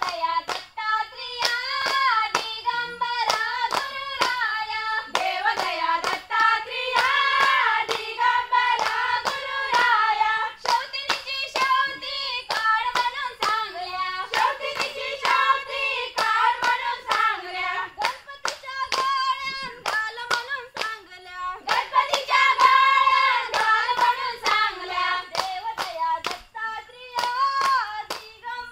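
A group of women singing a Konkani folk song together while clapping their hands in a steady rhythm of about two claps a second.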